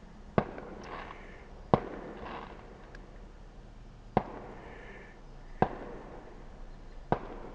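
Fireworks going off some way off, five sharp separate bangs about one and a half seconds apart.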